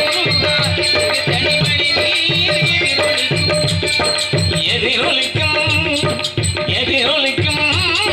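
Live music for Tamil village drama: a hand drum beating a repeating pattern under quick, steady clinking percussion, with a wavering, bending melody over the top.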